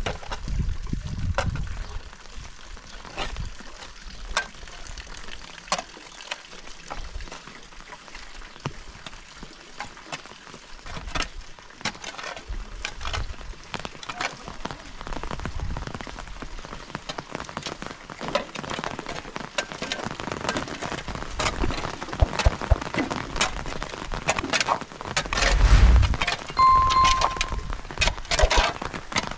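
Rain falling, with many separate drops ticking and clinking on hard surfaces, growing heavier in the second half. A brief loud low rumble comes near the end.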